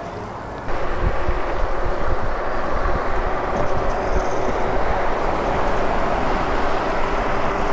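Riding noise from a moving Super73 electric bike: wind buffeting the microphone and tyre noise from the road, with a faint steady hum. It gets suddenly louder a moment in.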